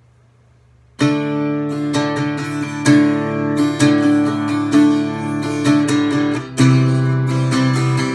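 Strummed acoustic guitar playing a song's instrumental opening. It comes in sharply about a second in and shifts to a new chord late on.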